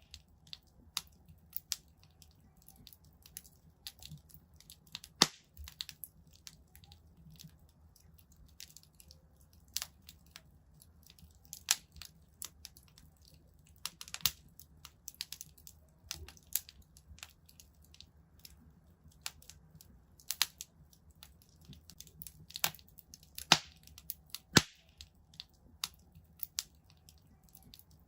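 Wood fire in a fireplace crackling: irregular sharp pops and snaps, a handful of them much louder, over a faint low steady rumble.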